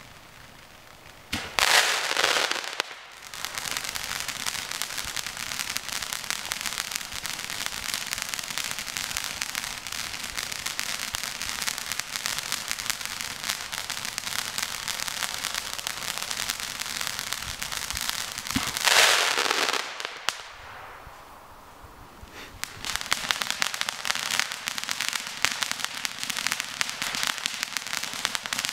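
Ground firework fountain-and-mine combination going off. A loud rushing blast about a second and a half in gives way to dense, fast crackling that lasts about fifteen seconds. A second loud blast comes about nineteen seconds in, then a short quieter spell, and the crackling starts again.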